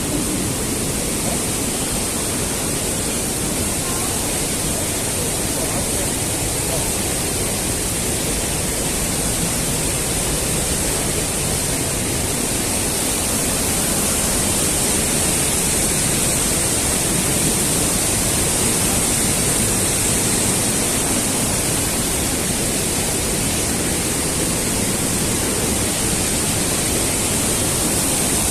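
Steady rushing of a mountain stream and waterfalls pouring through a narrow rock gorge, a loud, unbroken roar of white water that swells slightly about halfway through.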